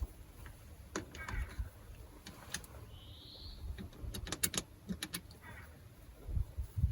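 Scattered light clicks and taps, bunched together about four to five seconds in, with one brief high chirp about three seconds in.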